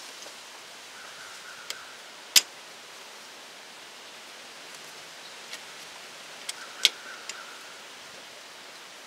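A few sharp metallic clicks and snaps, the loudest about two and a half seconds in and another near seven seconds, from a hand tool working a spring hose clamp off a brake booster check valve hose, over a steady hiss of wind.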